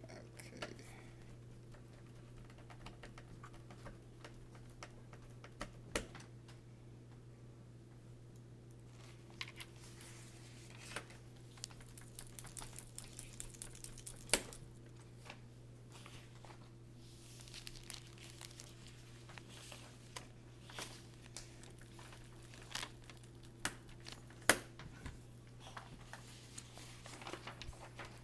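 Hands working on a laptop during a keyboard and speaker replacement: scattered clicks, taps and crinkling as parts and packaging are handled, with a quick run of clicks about halfway through, over a steady low hum.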